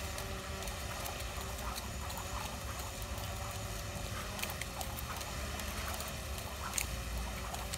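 A jump rope tapping on a concrete ledge as a man skips: light, irregular ticks over a steady low rumble, with one sharper click near the end.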